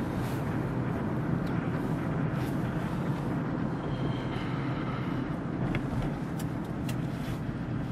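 Car driving on a town road, heard from inside the cabin: a steady mix of engine and tyre noise, with a few light clicks or rattles toward the end.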